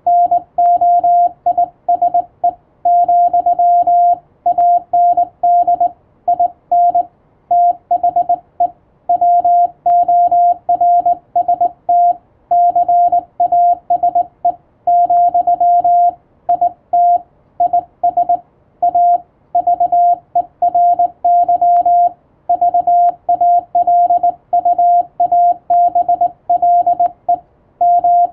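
Morse code (CW) tone: one steady mid-pitched beep keyed on and off in dots and dashes, letter after letter with short gaps between.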